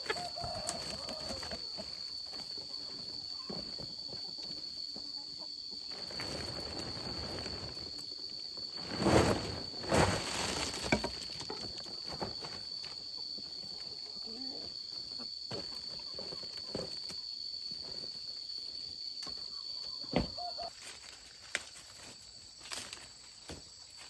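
An insect singing one steady high note that stops near the end, over scattered rustling and crackling, with two loud crackling rustles about nine and ten seconds in.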